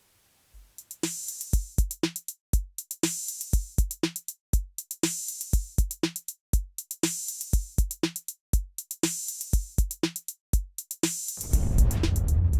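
Electronic outro music: a drum-machine beat of kick drum and snare, about two hits a second, giving way to a heavier, rumbling section near the end.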